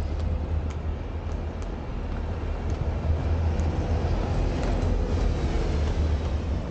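Busy city street traffic: a steady low rumble of vehicles on the road.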